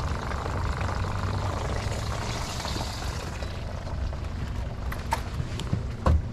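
Boat motor running steadily at low trolling speed, a low rumble with a few light clicks and one sharp knock about six seconds in.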